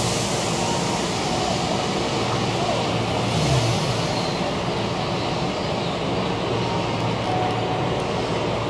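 Keihan electric train running, heard inside the front cabin: a steady rumble of wheels and running gear, with a short louder rush about three and a half seconds in.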